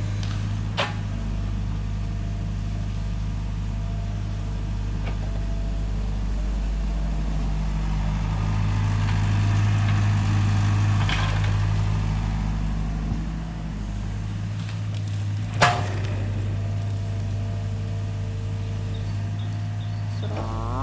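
Excavator's diesel engine running steadily, getting a little louder in the middle as it works. Sharp metallic clanks come about a second in and, louder, about three-quarters of the way through.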